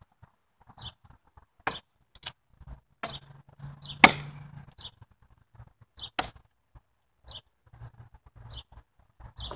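Machete blade chopping into a standing wooden pole: five sharp chops, the loudest about four seconds in. A short high chirp repeats about once a second throughout.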